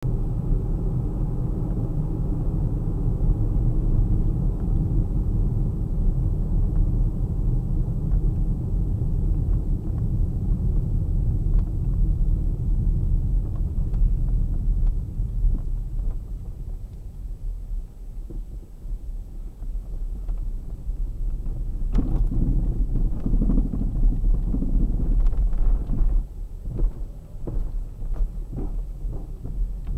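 Third-generation Kia Sportage on the move, with a steady low rumble of road noise. In the last third comes a run of short, sharp knocks, the knock of a worn steering rack.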